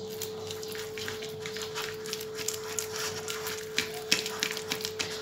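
Metal spoon scraping and clicking against a ceramic bowl while stirring a stiff paste of flour and boiling water. The clicks grow quicker and louder about halfway through, over a faint steady hum.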